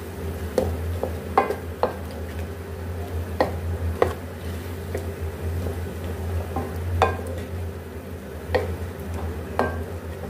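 Wooden spatula stirring chicken and peas in a metal pan, knocking and scraping against the pan at irregular moments, about ten sharp knocks in all, over a light sizzle of frying oil and a steady low hum.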